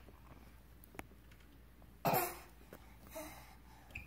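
A single short cough about two seconds in, then a faint small vocal sound about a second later; otherwise the room is quiet.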